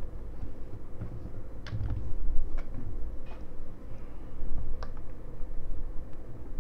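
About half a dozen sharp clicks at a computer, spaced irregularly, over low rumbling thuds and a faint steady hum.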